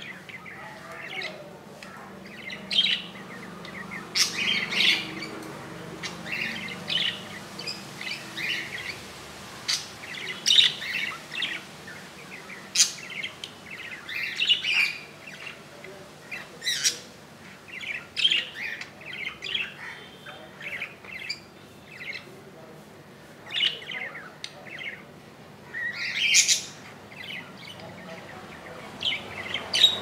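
Budgerigars chirping and chattering: many short, sharp calls in quick, irregular succession.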